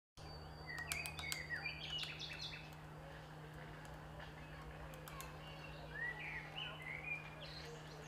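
Forest songbirds chirping and whistling in two short spells, with quick rising and falling notes, over a steady low hum; a few sharp clicks fall among the first spell.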